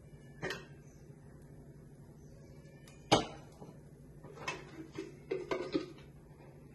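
Pots and utensils knocking about on a gas stove: a light knock about half a second in, a sharp clank about three seconds in, then a quick run of lighter clinks and taps.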